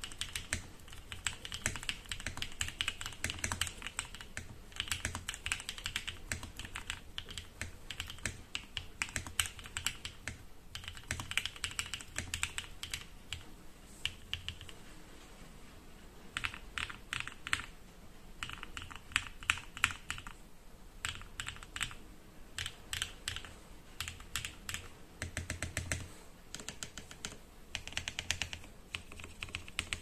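Typing on a Mode Sonnet custom mechanical keyboard with an FR4 plate, lubed NovelKeys Cream Dreams linear switches, lubed stabilizers and full foam. Steady fast typing for about the first half, then quick runs of keystrokes separated by short pauses.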